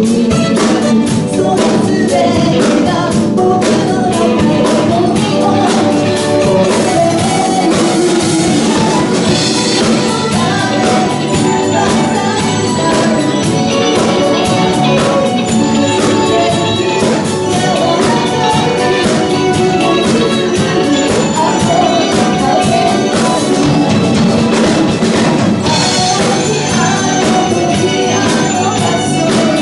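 Live pop band playing a song, with a drum kit keeping a steady beat under a singer.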